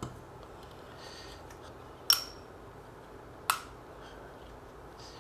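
Two sharp clicks of small hard parts knocked or set down, about a second and a half apart, the first with a brief metallic ring, amid faint handling sounds.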